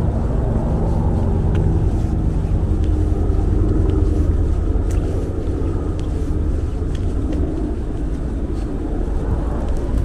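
Steady low rumble of city traffic, with a few faint clicks.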